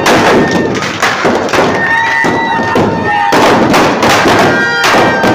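Firecrackers packed inside a burning Ravan effigy going off in a run of sharp bangs and crackles. Steady high held tones sound through the bangs.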